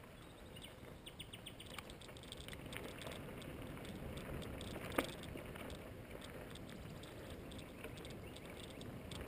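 Bicycle rolling over a rough, stony dirt track: steady rumble of the tyres, with scattered clicks and rattles and one sharp knock about five seconds in.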